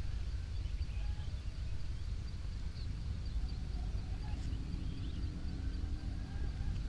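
Village dawn ambience: a steady low rumble with faint, scattered bird chirps above it.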